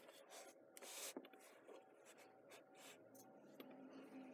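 Faint rustling and scraping of moldable play sand pressed and squeezed by fingers, in soft irregular bursts, the strongest about a second in.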